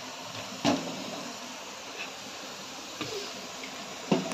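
Pot of water at a rolling boil on a gas stove: a steady hiss, broken by a sharp knock about two-thirds of a second in and lighter knocks around three seconds and near the end.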